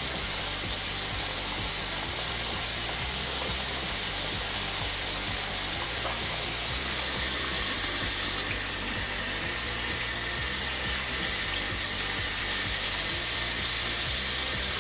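Faucet water running steadily into a bathroom sink while soapy hands are rubbed and rinsed under the stream, with background music.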